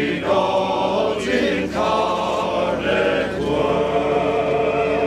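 A group of voices singing a Christmas carol together in long held notes.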